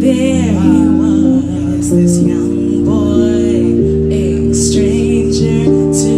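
Live song: a woman singing with vibrato into a microphone over sustained electronic keyboard chords, amplified through a PA speaker.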